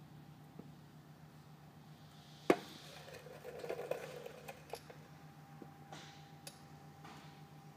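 Quiet shop room tone with a steady low hum, a single sharp click about two and a half seconds in, and a few faint clicks and rustles of handling just after it.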